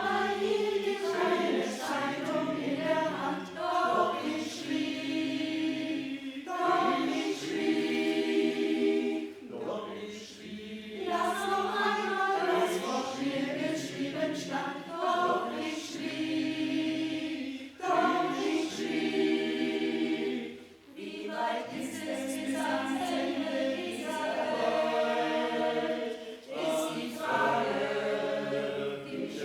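A choir singing a German Schlager ballad.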